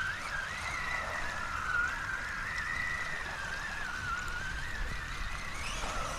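Brushless electric motor of a Traxxas Summit RC truck whining, its pitch wavering up and down with the throttle and climbing near the end.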